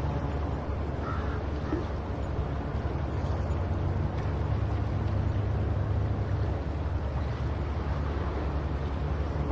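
Steady low rumble of wind buffeting the microphone over ocean surf, with a faint single seagull call about a second in.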